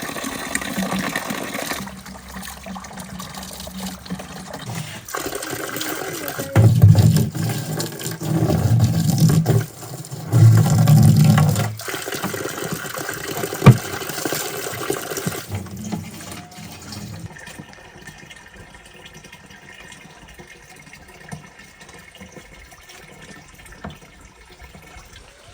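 Water running and being poured, with three louder gushing stretches in the middle and a sharp knock partway through before it quietens.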